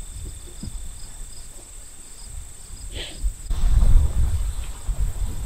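Insects, crickets, trilling steadily in a grassy pasture, with a faint regular chirping pulse in the first half. About three seconds in comes a short high chirp, and soon after a low rumble of wind on the microphone grows louder.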